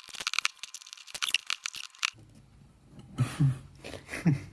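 Tire irons prying a tight rubber tire off a Henoh/Xiaomi-style electric scooter rim: a fast run of small crackling, creaking clicks for about two seconds. Then come a few short grunts of effort.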